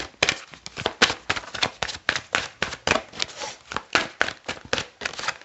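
A deck of Romance Angels oracle cards being shuffled by hand: a fast, irregular run of soft card clicks and flicks.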